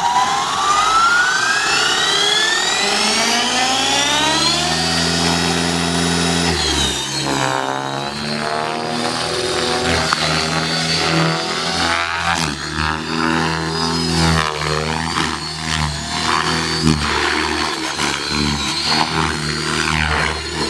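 Align T-Rex 600E electric RC helicopter spooling up: the brushless motor and rotor whine rises steadily in pitch for the first six seconds or so. It then holds and wavers up and down in pitch as the helicopter flies aerobatic maneuvers.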